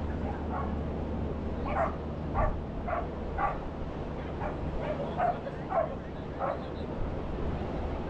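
A dog barking about ten times in quick succession, roughly two barks a second, over the steady low rush of ocean surf.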